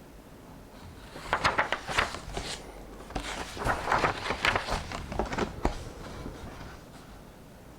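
Paper rustling and crackling as book pages are turned and handled, in two bouts of sharp crinkles and taps: one about a second in and a longer one from about three seconds in.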